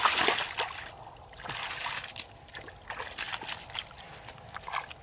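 Bare feet kicking and splashing through shallow muddy water, loudest at the start with a second splash about a second and a half in, then smaller wet steps across soft mud.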